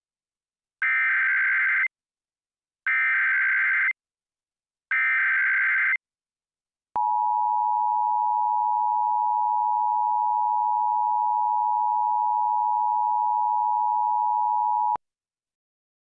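Emergency Alert System activation: three short bursts of SAME digital header data, about a second each with a second's gap between, then the EAS two-tone attention signal (853 and 960 Hz) held steady for about eight seconds and cutting off cleanly. It announces a Child Abduction Emergency (AMBER Alert).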